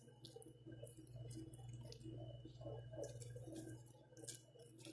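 Faint soft squishes and light clicks as boiled potato slices are laid onto sauce-covered eggplant slices in a ceramic baking dish, over a steady low hum.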